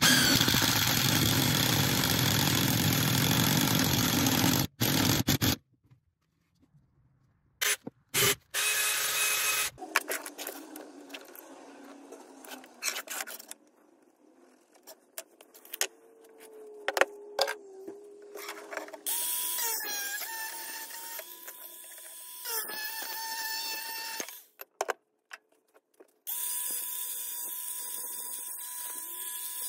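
A cordless drill bores into a driftwood branch, running loudly for about five seconds and then stopping abruptly. Short scattered knocks and handling noises follow. Near the end a small cordless angle grinder runs with a steady high whine as it cuts a length of pipe.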